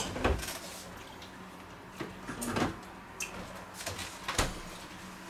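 A few short, separate knocks and clicks of things being handled and set down at a kitchen cupboard and counter, over a faint steady hum.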